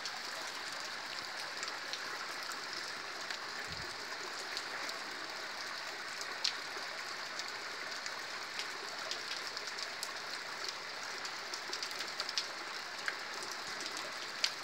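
Steady rain hiss in a rocky desert canyon, with scattered sharp drop ticks, mixed with a small creek running over rock.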